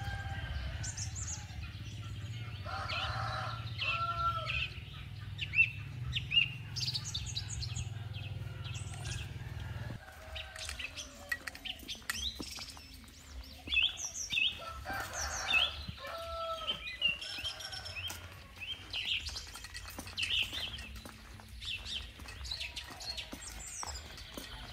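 Small birds chirping and calling over and over, with a chicken calling a few seconds in and again about midway. A low steady hum under the first part cuts off abruptly about ten seconds in.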